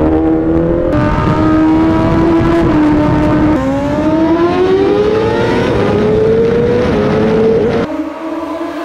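Sport motorcycle engine under acceleration, heard from the rider's seat. After a couple of abrupt changes in the sound early on, the engine note climbs steadily in pitch for about four seconds as the bike pulls through a gear.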